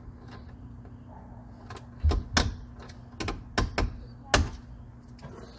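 About six sharp knocks and clinks in the second half, from hand tools and metal parts being handled while battery cables are fitted to the terminals, over a steady low hum.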